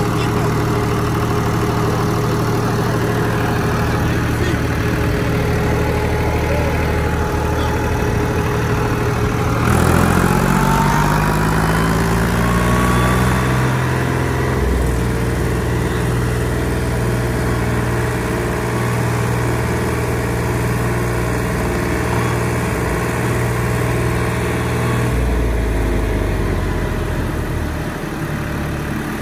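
International Harvester 553 tractor's diesel engine running at idle. About ten seconds in it revs up with a rising note over a few seconds, drops back near fifteen seconds, and its note shifts again near twenty-five seconds.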